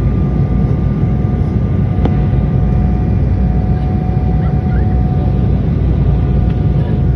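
Jet airliner cabin noise: a steady low rumble of engines and airflow, with a faint steady whine above it and a single brief click about two seconds in.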